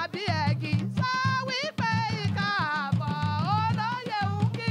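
Yoruba traditional music: talking drums and a barrel drum beaten with sticks play a fast, busy rhythm while a voice sings over them with a bending melodic line.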